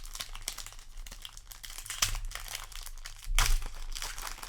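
Foil trading-card booster-pack wrapper crinkling as it is handled and opened, with a louder burst of crackling a little past three seconds in.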